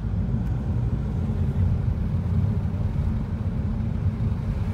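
A car's engine and tyre noise heard from inside the cabin while driving: a steady low rumble.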